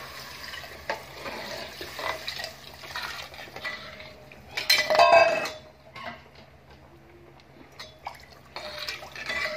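A metal slotted spoon stirs and scrapes rice in an aluminium pot as water is poured in, with the spoon knocking against the pot. The loudest sound is a metallic clang with ringing about five seconds in. More water is poured near the end.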